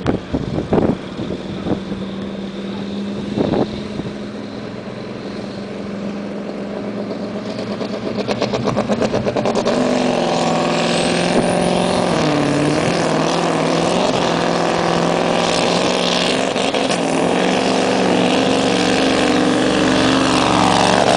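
Scania V8 diesel pulling truck hauling a weight sled under full load. Its engine is a distant hum at first, then about eight seconds in it turns into a hard, rough run that grows steadily louder as the truck comes closer.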